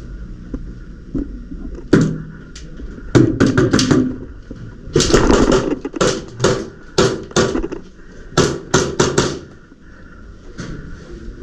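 Airsoft gunfire in close quarters: a run of sharp cracks and knocks from shots and BBs striking walls and doors, about a dozen, bunched between about two and nine seconds in, with a dense cluster around the middle.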